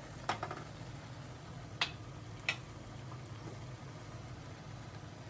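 A metal ladle knocking lightly against a clay cooking pot, three short clicks in the first half, over a steady low hum.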